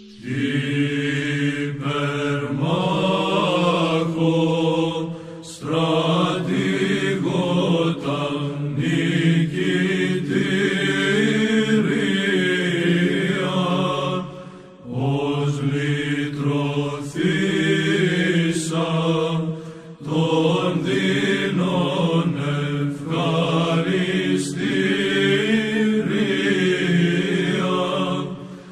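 Byzantine chant: voices singing a hymn melody over a steady low drone held beneath it, in long phrases with short breaks between them.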